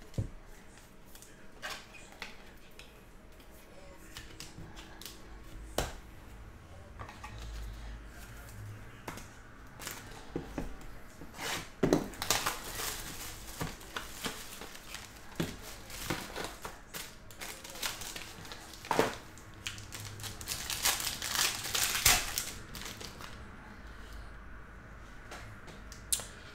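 Trading card pack being opened by hand: crinkling and tearing of the wrapping, with scattered clicks and taps of cards and plastic card holders. Two longer stretches of crinkling, one near the middle and one toward the end.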